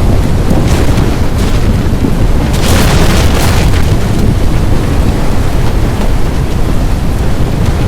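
Tornado-strength wind blasting the microphone: a loud, continuous low rumble with a harsher hissing surge about three seconds in.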